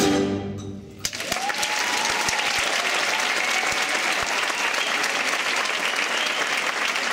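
The band's last chord dies away, then about a second in a theatre audience breaks into steady applause.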